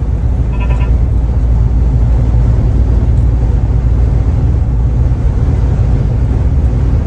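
Steady low rumble inside a vehicle buffeted by dust-storm wind. About half a second in, a brief pulsing tone sounds.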